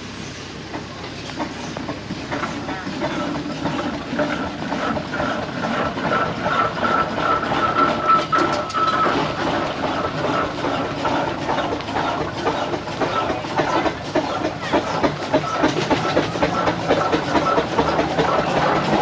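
Steam traction engine driving closer, its chuffing exhaust and clanking motion growing steadily louder as it approaches.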